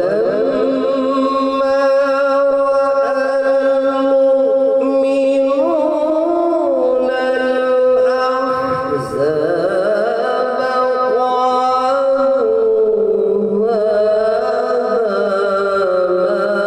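A man's voice chanting a Quran recitation (tilawat) into a microphone, drawing out long held notes that waver and shift in pitch.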